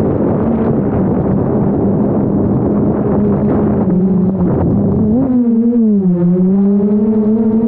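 DJI Mavic Air 2 quadcopter's motors and propellers humming at a steady pitch, heard from a camera on the drone, under a rush of wind on the microphone. About five seconds in, the wind rush drops away, and the hum rises briefly, then dips and settles.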